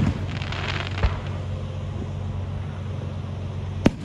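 Fireworks going off: a crackle of bursting stars just after the start, a dull thump about a second in, and one sharp bang near the end. A steady low hum runs underneath.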